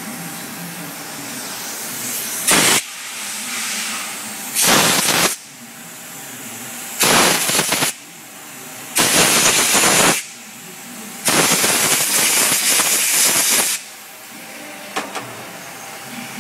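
Five bursts of loud hissing, each switched on and cut off sharply and each longer than the one before, the last about two and a half seconds. A faint steady machine hum runs underneath.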